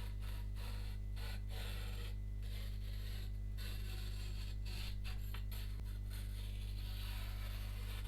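Irregular scraping strokes of a Shun VG10 Chinese cleaver's steel blade, each a hissy rasp with short breaks between them, over a steady low electrical hum.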